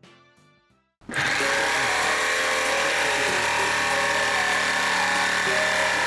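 Electric jigsaw cutting through thick wooden boards, starting suddenly about a second in and running at a steady whine as it saws along a curved marked line.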